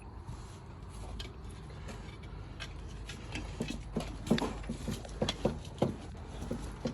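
Irregular clicks and knocks of hard objects, sparse at first and coming thicker and louder from about halfway in, over a low steady hum.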